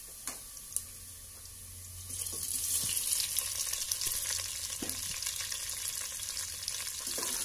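Oil sizzling with garlic, onion and ginger in a steel pot, faint at first with a couple of pops. About two seconds in the sizzling grows louder, with frequent crackles, as pieces of beef skin go into the hot oil.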